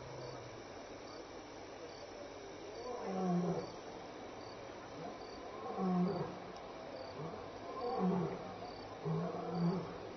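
Lion roaring: a series of deep grunting calls, a few seconds apart at first and coming closer together near the end.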